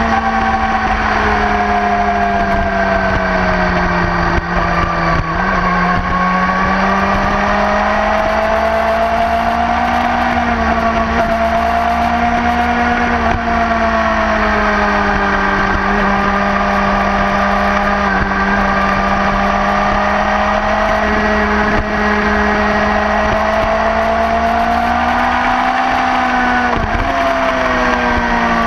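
Sport motorcycle's engine running hard at fairly steady high revs on a race track, its pitch easing and rising gently through the corners, with brief dips about five seconds in and near the end. A steady low rush of wind over the microphone runs underneath.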